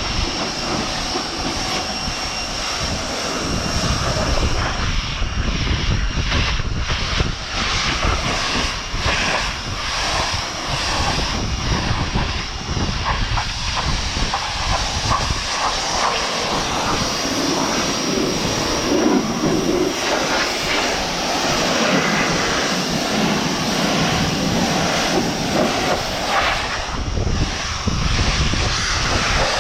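Pressure washer running and spraying water in a steady, loud hiss over a motor drone, its line just bled of air.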